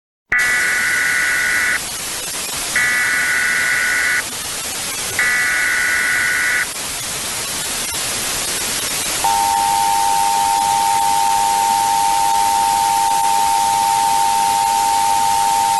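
Emergency Alert System tones over a steady static hiss: three bursts of the warbling digital SAME header, each about a second and a half long, then about nine seconds in the long, steady two-tone attention signal begins and holds.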